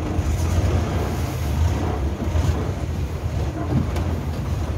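Long-tail boat's engine running steadily under way, a low rumble, mixed with wind rushing on the microphone and water washing past the hull.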